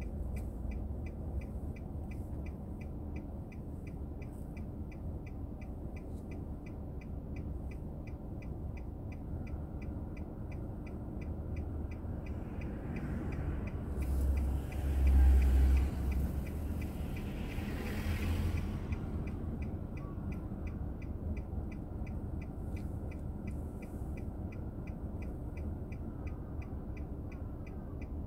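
Car on the move, heard through a dashboard recorder: steady low road and engine rumble with a faint, fast, even ticking. About halfway through, the rush of a passing vehicle swells up with a heavy low rumble at its loudest, then fades.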